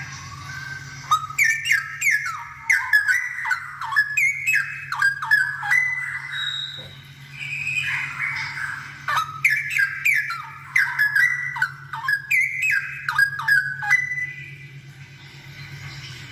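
Straw-headed bulbul (cucak rowo) in full song: two long phrases of rapid, loud whistled notes that glide up and down, a few seconds each, with a short pause between. A steady low hum runs underneath.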